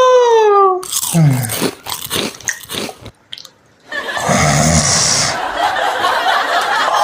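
Loud snoring: a long whistling tone that rises and then falls, then rough, rattling snorts. After a short pause, noisy breathing with a low rumble takes over.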